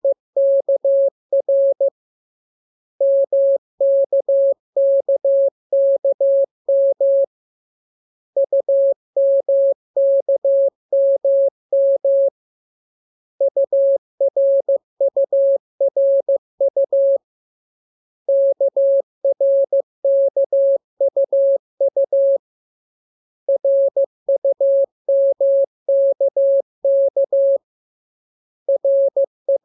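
Morse code (CW) practice radiogram: a single steady tone of about 600 Hz keyed on and off in dots and dashes. The characters come in groups about four seconds long, each followed by a pause of about a second.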